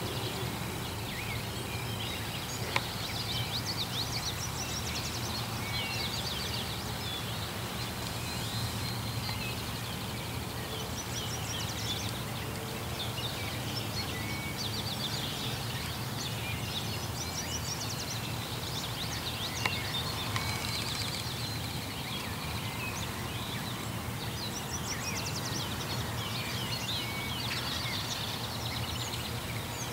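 Songbirds chirping, with high trills repeating every several seconds, over a steady low background rumble. A couple of sharp clicks stand out, the loudest about three seconds in.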